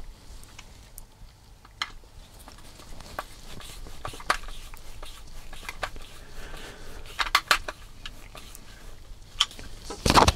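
Screwdriver driving small 3x10 mm screws into the plastic front gearbox and chassis of a Tamiya MF-01X RC car kit, with scattered sharp clicks and small knocks of the plastic parts being handled. There is a quick run of clicks about seven seconds in and a louder knock near the end.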